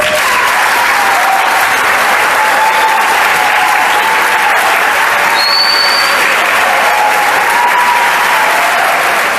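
Audience applauding in a church as a choir piece ends, a steady, loud wash of clapping that fades out near the end.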